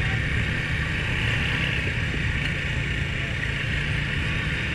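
Honda ATV engine running steadily while riding, with a steady hiss over it.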